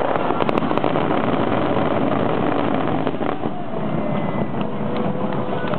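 Fireworks finale: many shells bursting close together, a sharp crackle of reports in the first second settling into a continuous rumbling roar.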